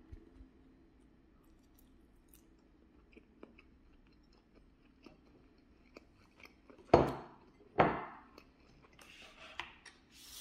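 A person chewing bites of fried chicken close to the microphone, with faint clicks and small crunches. About seven seconds in come two louder short rushes of noise, a little under a second apart.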